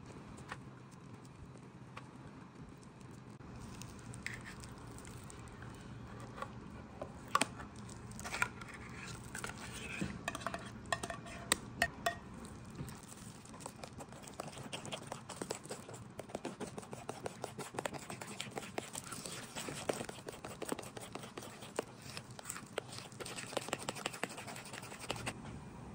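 A utensil clicking and scraping against a mixing bowl while stirring a thick cream mixture. The clicks are scattered at first, then turn into a steady run of quick taps in the second half.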